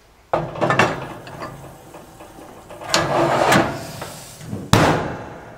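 Heavy cast-iron lid set down onto a cast-iron roasting pan on a gas grill grate, with clinks and scraping of iron on iron. A loud clunk comes near the end.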